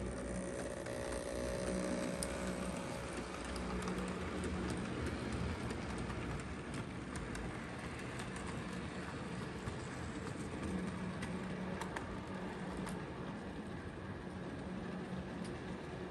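Hornby 00 gauge LNER Q6 model locomotive running past with a rake of wagons: a steady motor hum and rolling wheel noise on the track, with occasional faint clicks.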